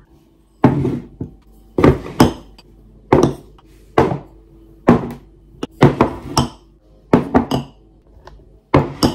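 Glass and black candle jars full of set wax being put down one by one on a wooden table: a series of clunks and glassy clinks, roughly one a second.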